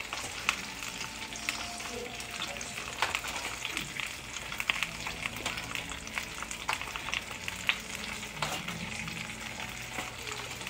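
Hot butter and meat juices sizzling and crackling in the foil-lined roasting pan around a just-roasted pork rib roast, with scattered sharp pops while a spoon bastes the meat.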